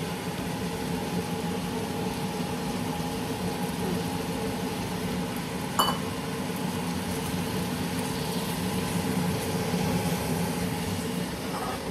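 Vegetables frying in a hot stainless steel pan on an induction cooktop: an even sizzling hiss under a steady hum with several held tones, and one short knock about six seconds in.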